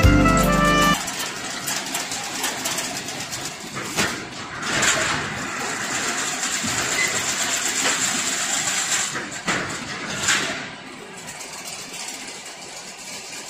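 Automatic chain link fence machine running, weaving wire into mesh: a steady mechanical din with fine rapid clicking and clattering of wire and parts, swelling louder a few times and dropping quieter near the end. A short stretch of music ends about a second in.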